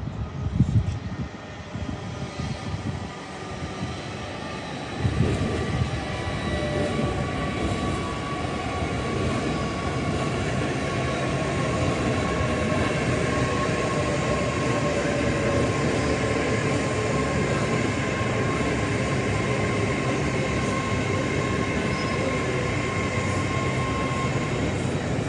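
A train running close by: a steady rumble that rises sharply about five seconds in and holds, with faint whining tones that slowly fall in pitch.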